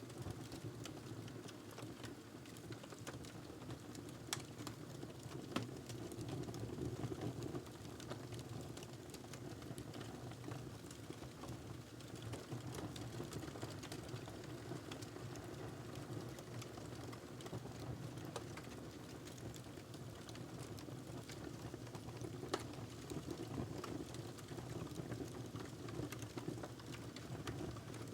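Wood fire burning in a fireplace: frequent small crackles and pops over a steady low rush of flame.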